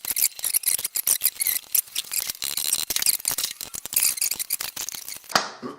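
Fast, irregular metallic clicking of hand tools working on the motorcycle engine. It stops abruptly near the end.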